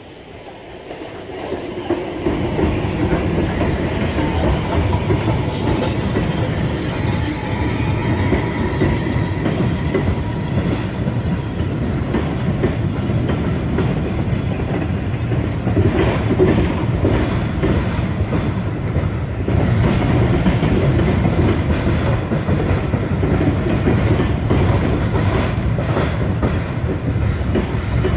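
A steam-hauled train of passenger coaches crossing a girder railway bridge: a loud, steady rumble of wheels on the rails that swells in over the first two seconds, with a clickety-clack of wheels over rail joints through the second half.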